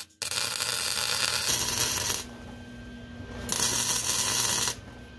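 Arc welding on a car's transmission mount: two runs of crackling, hissing weld, the first about two seconds long and the second about a second, with a short pause between.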